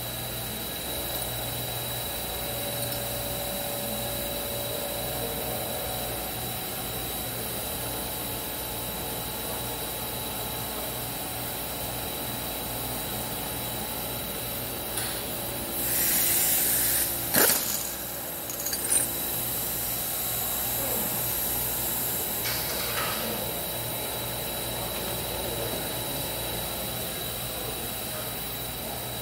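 Steady hum of running shop machinery with a faint high whine. About halfway through comes a short burst of hiss, then a sharp click, with a couple of lighter clicks around it.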